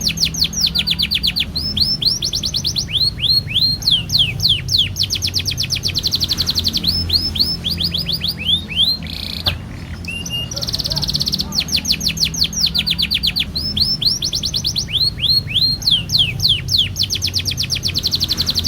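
Domestic canary singing a long continuous song of rapid rolling trills and runs of quick falling notes. The song breaks off briefly about halfway through, then starts again.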